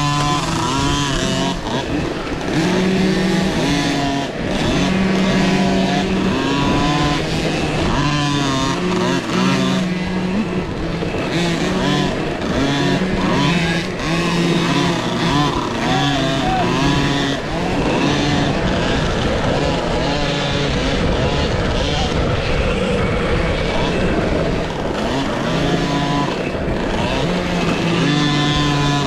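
Mini dirt bikes racing, their motors rising and falling in pitch as they speed up and slow down, over a steady rush of noise.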